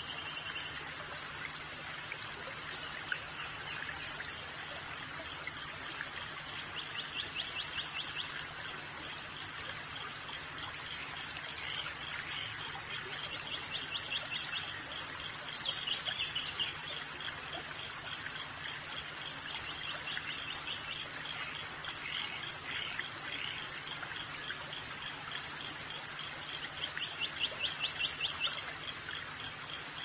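Birds singing in short runs of rapid trilled notes, several times over, above a steady rush of flowing water.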